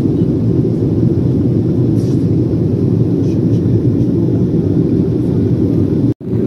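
Steady low rumble of airliner cabin noise in flight inside an Embraer E190. It cuts out abruptly for a split second near the end.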